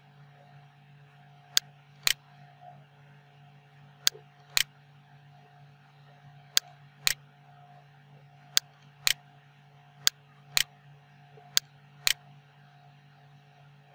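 Computer mouse clicks in pairs about half a second apart, a new pair every two seconds or so, over a steady low electrical hum.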